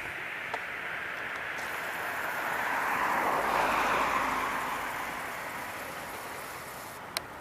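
A road vehicle passing on the street: a steady hiss of tyres and traffic noise that swells to a peak about halfway through and then fades, with a few small clicks near the end.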